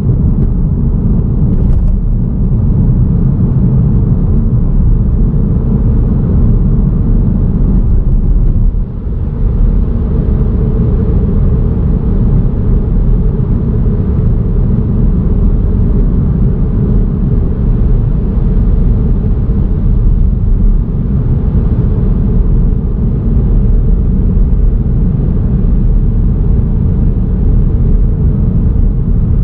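Car driving at road speed, heard through a vehicle-mounted action camera: a steady low rumble of road and wind noise, with a brief dip about nine seconds in.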